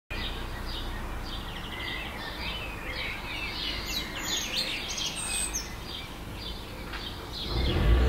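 Several birds chirping and trilling in quick, high notes over a steady low rumble. Near the end a louder low hum with a few steady pitches comes in.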